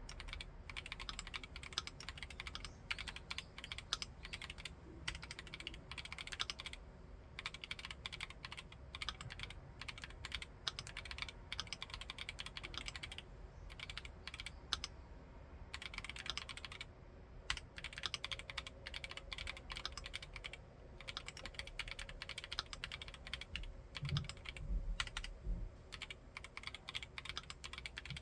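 Typing on a Keychron Q1 Knob aluminium-cased mechanical keyboard with Haimu Midnight switches: quick runs of keystrokes broken by a few short pauses.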